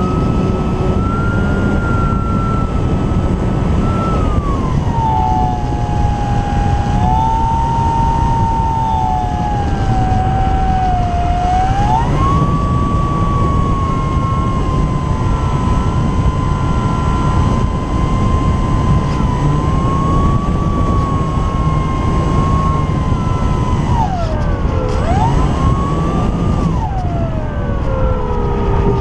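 Electric motor and propeller of an Apprentice S 15e RC trainer plane whining in flight, with wind rushing past. The whine's pitch drops about four seconds in, climbs back about twelve seconds in, dips briefly later on, and falls again near the end as the throttle is eased and opened.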